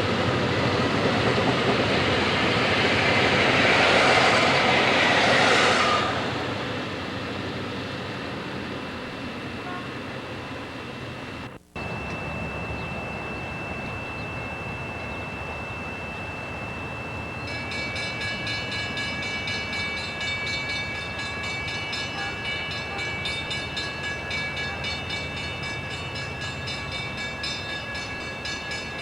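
A train passing close by, its loud rumble fading about six seconds in. After a brief dropout, a steady high tone sounds, joined partway through by several high tones that pulse quickly.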